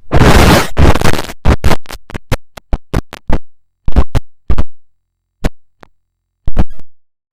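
Stuttering, abruptly chopped bursts of harsh distorted noise, an electronic glitch-style sound effect. A dozen or so bursts of varying length come fast in the first half, then only a few short stabs separated by dead silence.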